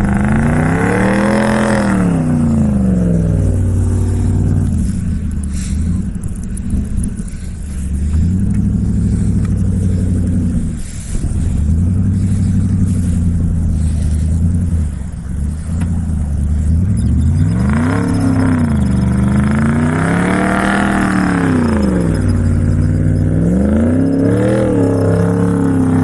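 2012 Ford F-150's 5.0 V8 engine running and revving. The pitch rises and falls once early, holds fairly steady for a long stretch, then rises and falls three more times near the end.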